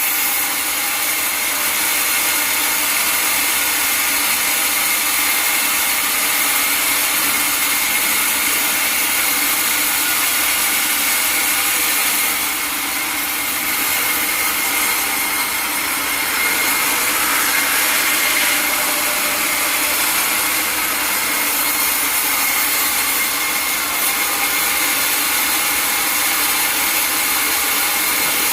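Sawmill saw running through wood, a steady rasping whine with a brief drop in level about halfway.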